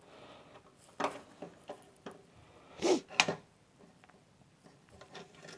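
A few light clicks and knocks of small tools and parts being handled on a workbench: one about a second in, a louder pair about three seconds in, and another near the end.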